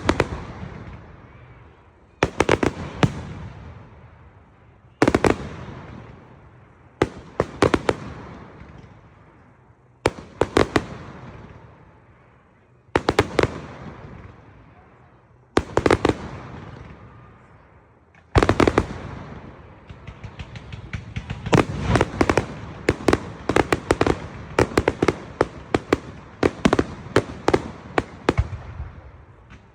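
Fireworks going off: clusters of sharp bangs every few seconds, each trailing away in a fading echo, then a denser run of rapid bangs in the second half.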